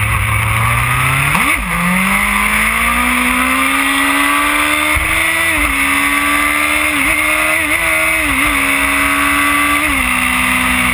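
Yamaha R1's inline-four engine running at road speed over a heavy rush of wind. About one and a half seconds in the revs jump sharply and fall back, then climb steadily for several seconds, with a few brief dips in the engine note near the end.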